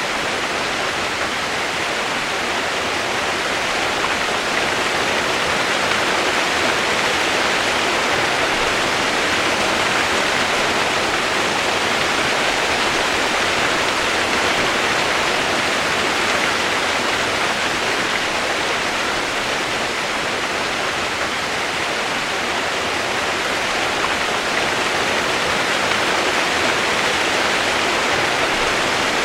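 Continuous rain-like white noise: an even, steady hiss with no separate drops or other events, swelling and easing only slightly.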